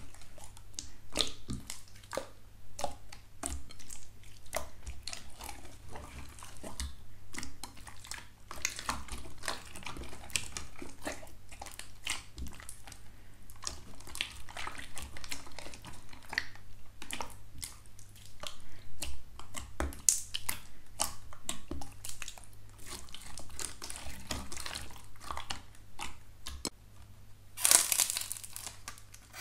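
Clear, glossy slime squished and pressed by hand in a bowl: a steady run of small wet, sticky clicks and pops. Near the end a louder crinkling starts as a pink bear-shaped squishy toy is squeezed.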